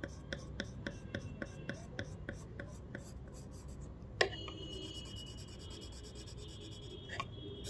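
Graphite pencil scratching on paper in quick, even shading strokes, about three or four a second, for the first three seconds. A single sharp tap about four seconds in is the loudest sound, followed by fainter, lighter strokes.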